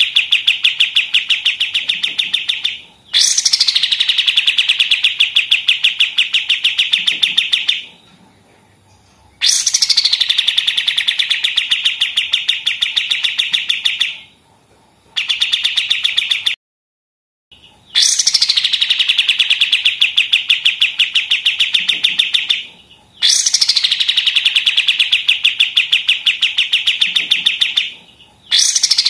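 Kapas tembak bird singing its rapid machine-gun trill in bouts of several seconds, each opening with a quick falling whistle, with short breaks between bouts.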